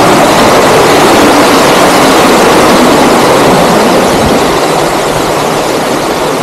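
Small waterfall rushing over rocks into a pool: a loud, steady roar of water, easing slightly about four seconds in.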